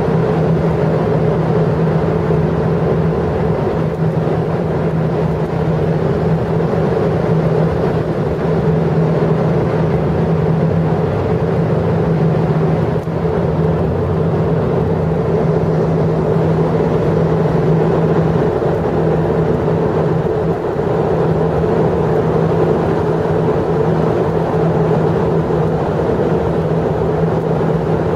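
Steady engine drone with a constant low hum and a second steady tone above it, unchanging in level throughout.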